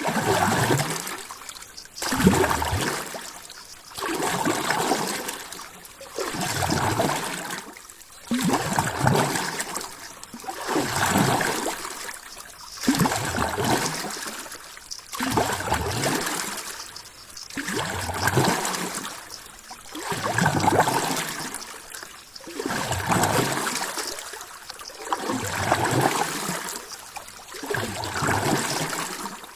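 Water splashing in a steady rhythm, each swell rising and fading about every two seconds.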